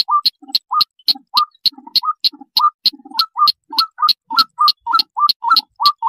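Bird-lure recording of a sintar, a crake, calling: a fast, even series of sharp clicking notes, about three to four a second, each with a short upward-hooked note.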